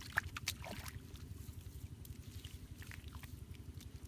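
Wet mud squelching and slapping as hands press and pat it into shape, in short irregular smacks, the loudest just after the start. A steady low rumble lies under it.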